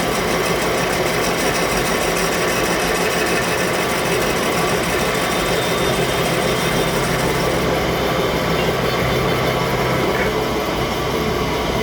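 A metalworking machine running steadily with a dense mechanical whir; its highest hiss drops away about eight seconds in.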